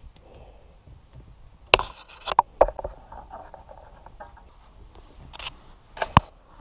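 White electrical cable being fed by hand down through a hole drilled in a wall's top plate, with scraping and rustling of insulation and a few sharp knocks, a quick cluster about two seconds in and another near the end.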